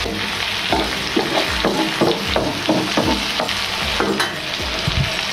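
Vanjaram (seer fish) steaks shallow-frying in oil in a non-stick pan, sizzling steadily, with repeated taps and scrapes of a spatula as the steaks are turned over.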